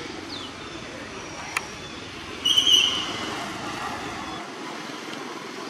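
Steady outdoor background noise, with a single sharp click about one and a half seconds in and then a short, loud, high-pitched squeal about two and a half seconds in.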